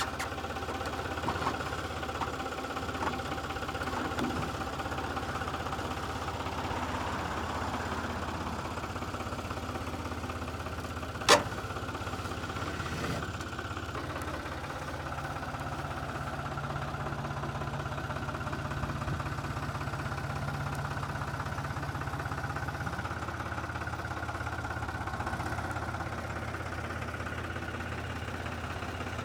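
An engine idling steadily, with one sharp click about eleven seconds in.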